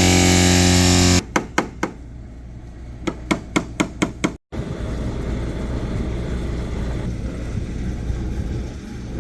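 For about the first second, a loud steady machine tone. Then a hammer taps on the car's sheet-metal body panel to knock down high spots in a dent: three quick taps, a pause, then about six taps in a quick even run. After that comes a steady low hum and hiss.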